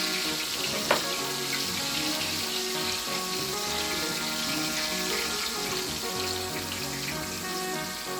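Chicken frying in a pan of oil, sizzling with a steady hiss. A single sharp click comes about a second in, and background music plays underneath.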